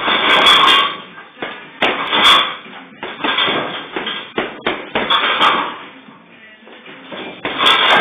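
Gloved punches landing on a hanging heavy bag in several quick flurries, over background music.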